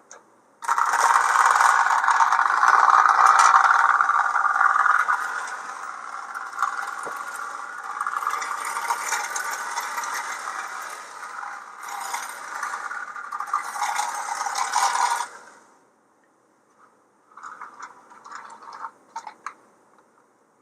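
Marx 1829 tinplate toy locomotive running on O-gauge metal track: the electric motor's whirr with the wheels rattling along the rails. It starts abruptly, is loudest for the first few seconds, wavers as it goes, and cuts off about fifteen seconds in, followed by a few faint clicks.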